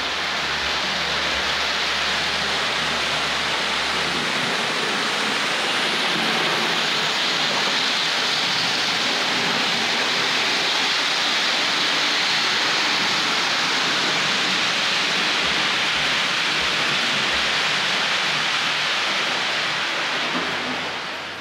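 Hornby OO-gauge model locomotive running with a rake of coaches on metal track: a steady rushing whirr of its electric motor and wheels, dying away at the end as the power is turned down.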